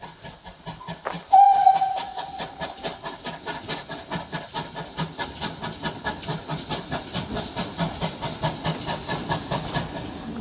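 Steam locomotive hauling coaches. It sounds one short whistle blast about a second and a half in, the loudest sound here. Its exhaust chuffs in an even rhythm of about four to five beats a second, growing louder as it approaches.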